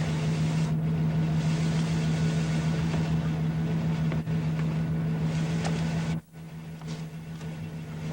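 Car engine running steadily with a low even hum, which drops away sharply about six seconds in, leaving a quieter background.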